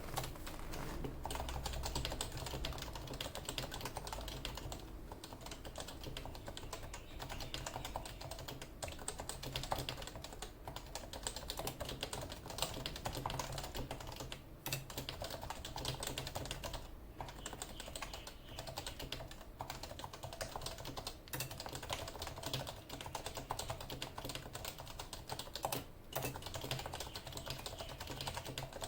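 Typing on a Leopold FC660C, a compact keyboard with non-silent 45 g Topre electro-capacitive switches: a steady run of quick keystrokes with a few short pauses.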